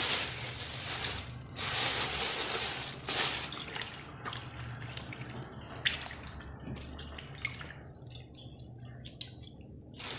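Peeled potatoes being washed by hand in a stainless steel bowl of water: water sloshing and splashing, loudest in the first four seconds, then scattered small splashes and drips.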